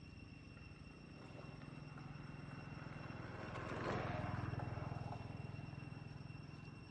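A motor vehicle's engine passing at a distance: a low hum that swells to its loudest about four seconds in and then fades.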